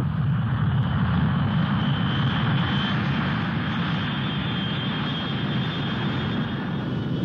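Steady aircraft engine noise: a low rumble with a thin high whine on top.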